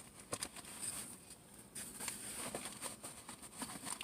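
Faint clicks and rustling as small hand tools and kit items are handled.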